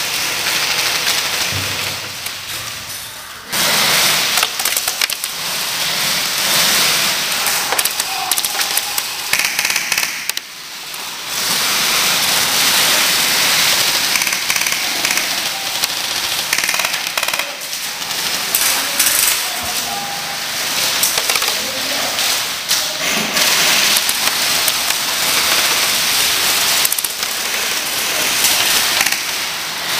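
Airsoft electric guns firing rapid full-auto bursts: a dense, crackling rattle of shots, with short lulls about three and ten seconds in.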